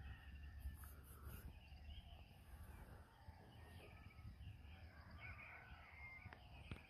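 Faint early-morning birdsong: scattered short chirps and calls over a low rumble, with a single soft click near the end.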